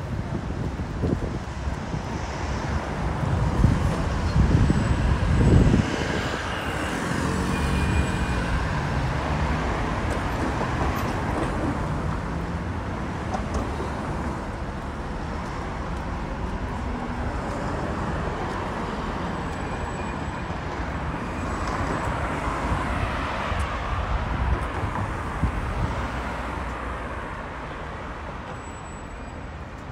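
City street traffic with cars passing close by, the loudest pass about four to six seconds in and the engine noise fading gradually toward the end.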